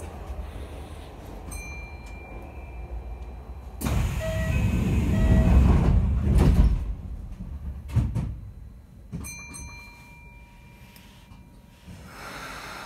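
Kintetsu 5800-series train's sliding passenger doors closing at a station stop: a loud rush of noise about four seconds in that ends in a thud, with short electronic tones before and after.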